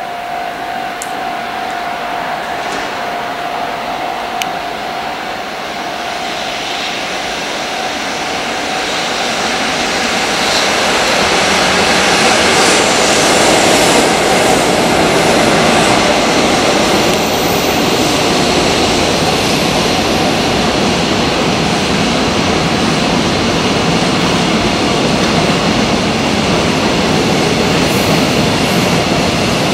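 JR Freight container train passing at speed behind an electric locomotive: a steady high tone as it approaches, then a loud, steady rolling noise from the locomotive and the long run of container wagons going by.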